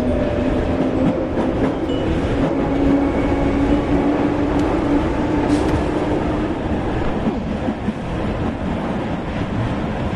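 Metro train running, heard from inside the carriage: a continuous rumble of the train on the track, with a steady whine that rises slightly in pitch and dies away about six seconds in.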